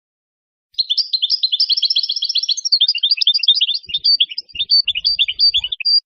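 European goldfinch singing a fast, twittering run of high notes. It starts just under a second in and goes on for about five seconds.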